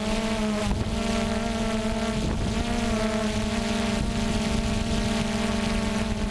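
DJI Phantom quadcopter's electric motors and propellers buzzing steadily in a near-still hover, heard from the GoPro camera slung beneath it, with wind rumble on the microphone.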